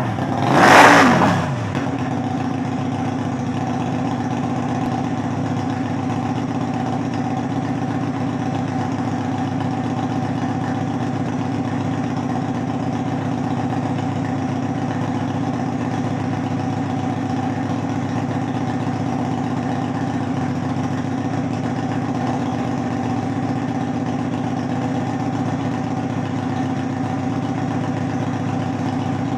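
Kasinski GTR 250 motorcycle's V-twin exhaust rumbling loudly: one quick throttle blip about a second in that falls back, then a steady idle.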